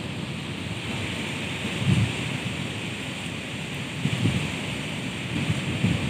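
Strong wind blowing through leafy trees: a steady rustling hiss of leaves, with low gusts of wind buffeting the microphone about two seconds in and again about four seconds in.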